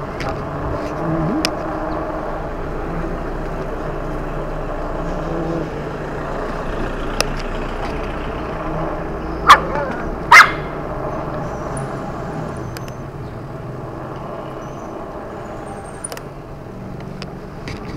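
A dog barks twice, sharply, about a second apart near the middle, over steady wind and road noise from riding.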